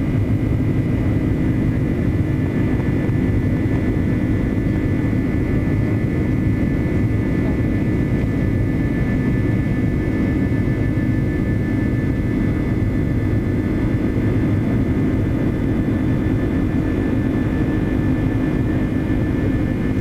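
Jet airliner's turbofan engines heard from inside the cabin during the climb after takeoff: a steady rushing noise with a low hum and a thin, steady high whine.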